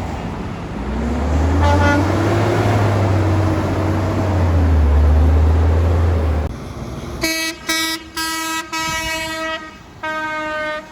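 A heavy truck's engine rumble swells as it passes, with a brief horn toot about two seconds in. Then a big truck's horn blasts five times in quick succession, the last after a short pause.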